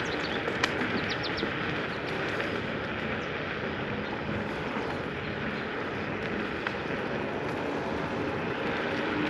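Steady rushing noise of riding an Ausom L2 Max dual-motor electric scooter: wind on the microphone and tyre rolling noise, with no clear motor sound. Birds chirp briefly in the first second or so.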